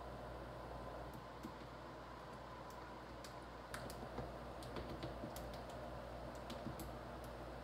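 Faint, irregular small clicks and scrapes of a spoon spreading pizza sauce over a pizza crust on a plate, growing more frequent about halfway through, over a steady low hum.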